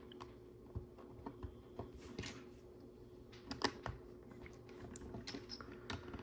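Plastic Lego bricks clicking and tapping as they are handled and pressed together: scattered, irregular light clicks, one sharper near the middle, over a faint steady hum.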